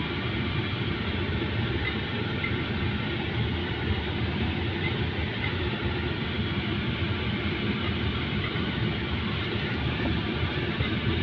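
Steady road and engine noise of a car driving slowly, heard from inside the cabin.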